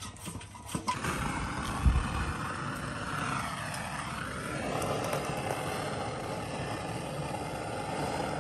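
Sears de luxe kerosene flame sprayer's burner hissing steadily once lit, starting abruptly about a second in, while its preheat coil is still heating the fuel. A low thump comes about two seconds in.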